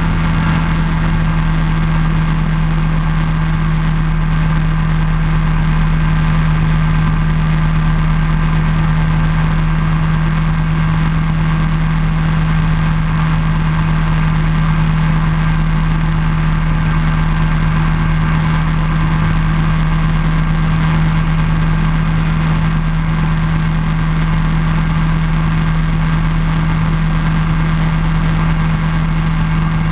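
Ultralight floatplane's pusher engine and propeller running steadily in cruise flight: a constant, even drone with one strong low tone that does not change.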